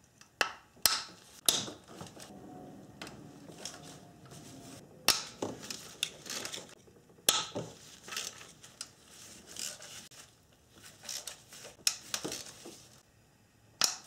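Irregular clicks and metallic knocks of a socket wrench and extension working on the valve-cover bolts of a Toyota 1GR-FE V6 engine.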